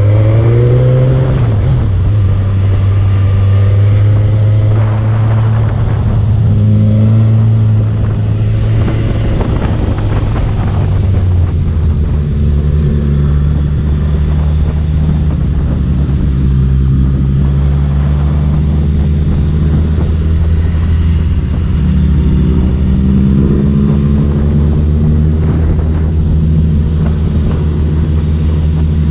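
Motorcycle engine running at road speed, its pitch rising as it accelerates three times: near the start, around a quarter of the way in, and again late on. A steady rush of wind and road noise runs under it.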